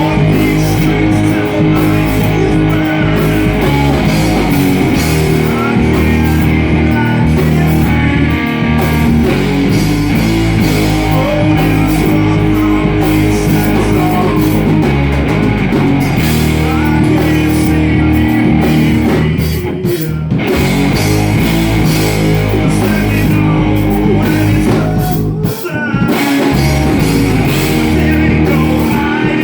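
Live rock band playing a loud song on guitar and drum kit, with singing. The band drops out briefly twice, about two-thirds of the way through and again near the end.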